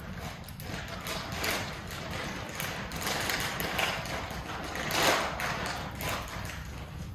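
Crinkling and rustling of a dog-treat package being handled and opened, in irregular swells with small clicks, the loudest about five seconds in.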